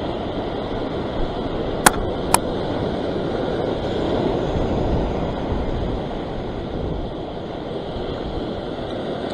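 Surf washing and breaking over a rock ledge, a steady rushing sound, with two sharp clicks about two seconds in, half a second apart.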